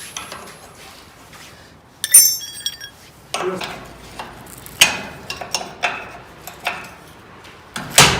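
Metal tool work on the steel gear rack of a sliding gate as its two mounting bolts are undone: a ringing metal clink about two seconds in, then irregular clicks and knocks, with a louder knock near the end.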